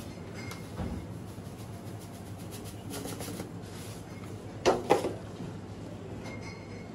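Dry breadcrumbs shaken from a plastic tub into a glass baking dish, with a soft thump early on. Just under five seconds in, two sharp knocks about a quarter second apart come from a metal baking tray being picked up and handled. A steady low hum runs underneath.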